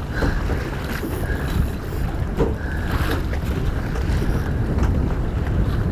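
Wind buffeting the microphone over the steady rush and slap of water along the hull of a small Puck-class sailboat under way.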